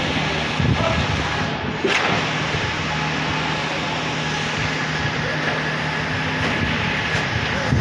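Concrete pump truck's diesel engine running steadily at a constant speed, with a steady low hum over loud machinery noise and a single knock about two seconds in.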